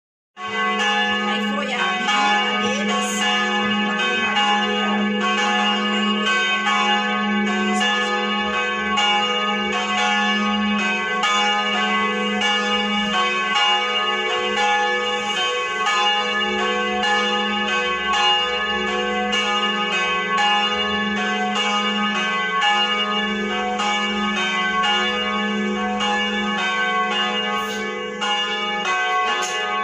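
Several church bells pealing, struck in quick succession so their ringing overlaps without a break.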